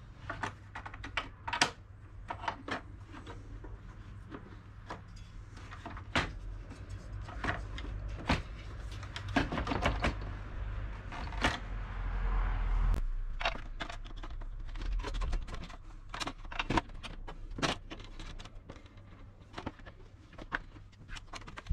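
Irregular clicks and knocks of the table saw's metal blade carriage and bracket plates against its red plastic housing as the assembly is handled and fitted in, with a longer scraping, rubbing stretch about halfway through.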